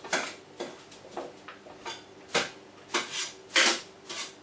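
Kitchenware being shifted about on a worktop: a string of sharp clicks and clatters, roughly two a second, the loudest about three and a half seconds in.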